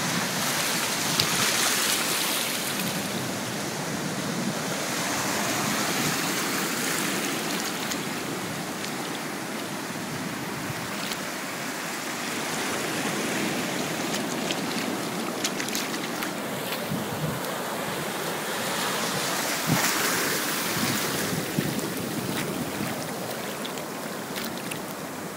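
Ocean surf washing up the beach and over the shallows, swelling and ebbing every several seconds, with some wind on the microphone.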